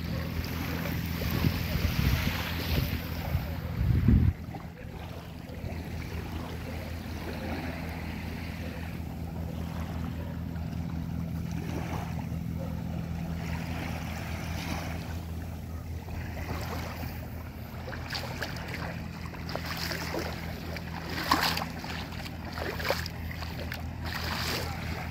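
Wind gusting on the microphone, strongest in the first four seconds and ending in a loud gust about four seconds in, over a steady low hum and small waves lapping at the shoreline. Distant voices of people on the beach come through near the end.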